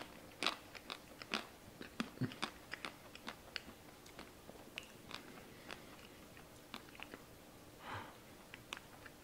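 Close-miked chewing of spicy stir-fried instant ramen noodles: quick, wet mouth clicks and smacks, dense over the first few seconds and sparser after. A short breath about eight seconds in.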